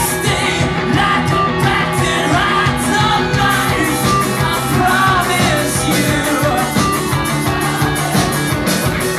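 Live rock music: a band playing electric guitar and drums, with a lead singer singing over them.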